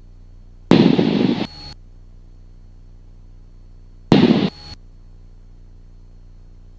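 Two loud bursts of radio static over the aircraft's headset audio, the first about a second long and the second about half a second, each starting and stopping abruptly. Under them, the Cessna's engine drones steadily.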